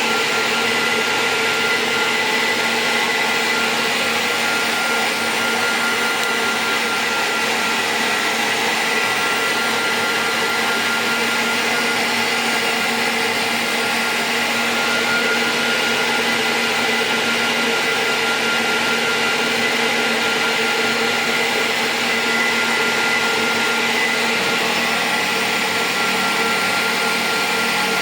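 Cooling fans running steadily on a 2000 W IPL epilation device's power supply under test after repair, a constant whir with a thin high whine over it.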